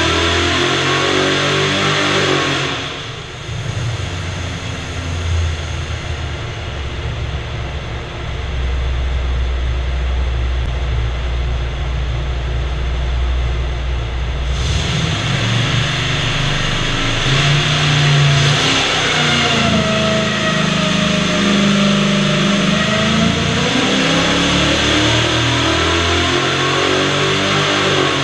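Pontiac 455 H.O. V8 with cast iron round-port heads, a mild hydraulic roller cam and FAST EZ-EFI 2.0 fuel injection, running on an engine dyno. It starts at high revs, drops off about three seconds in, then climbs back up over the following seconds and stays up through the second half.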